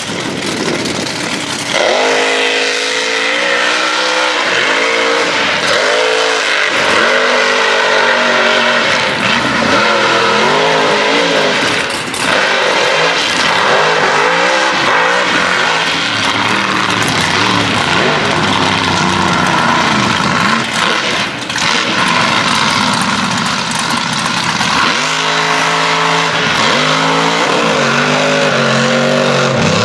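The 2600-horsepower 'Big Guns' mega mud truck's engine revving hard, its pitch surging up and down over and over as the truck churns through a mud pit, with the rush of tires throwing mud and water. The loud running starts about two seconds in.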